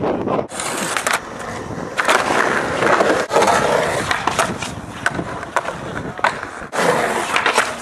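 Skateboard wheels rolling on concrete, with sharp clacks of the board striking the ramp and ground about 2 s in, about 3 s in and again near the end.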